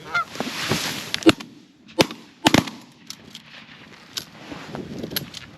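Rustling for the first second or so, then a few sharp knocks and clicks: one about a second in, another near the two-second mark and two close together shortly after, with fainter ticks later.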